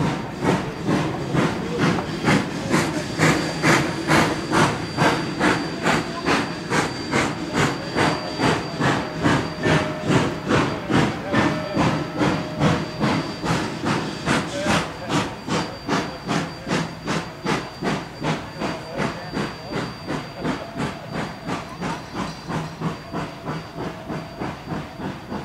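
Rio Grande Southern #20, a narrow-gauge 4-6-0 steam locomotive, working under steam with a steady, even beat of exhaust chuffs and hissing steam. The beats grow fainter toward the end.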